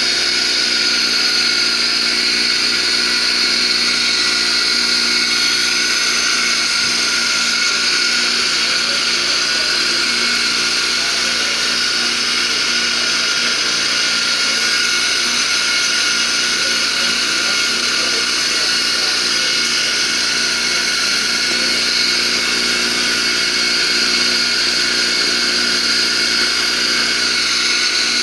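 Electric grinder running steadily, a constant high whine with no change in speed or load.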